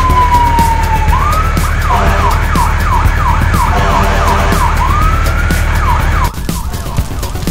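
A fire engine siren: a long falling wail, then quick up-and-down whoops about two a second over a low steady rumble, cutting off suddenly about six seconds in.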